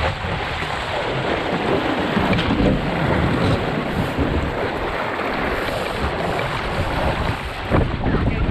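Wind buffeting the microphone and water rushing and splashing along the hull of a National 18 sailing dinghy under way in choppy sea, a steady noisy rush with a short knock near the end.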